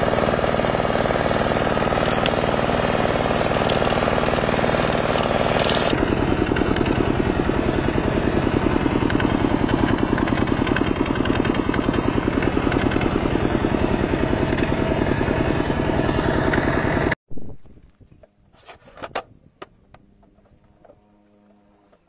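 Kubota walking-tractor diesel engine running steadily at a constant speed, driving a belt-driven circular saw, cuts off suddenly about 17 seconds in. A few faint knocks follow.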